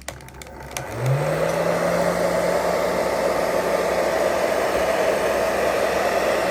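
Hair dryer switched on about a second in, its motor hum rising briefly as it spins up and then running steadily with a loud rush of air, blowing heat to soften the glue under a GoPro screen. A few light clicks come just before it starts.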